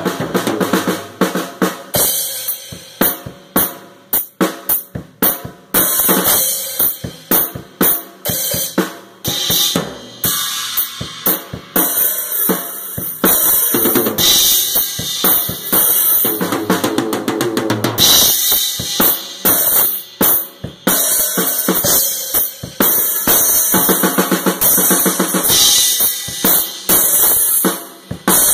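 WJM Percussion acoustic drum kit played as a loud, fast solo: dense fills of snare, toms and bass drum strokes, with stretches of crash and ride cymbal wash.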